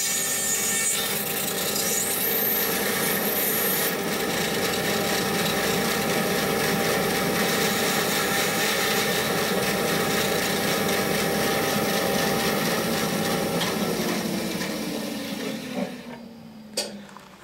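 Bandsaw running and cutting a wooden boat knee blank, nibbling away at a curved corner with a steady rasping cut over the motor hum. About fourteen seconds in, the hum falls in pitch and fades as the saw winds down, and there is a single click near the end.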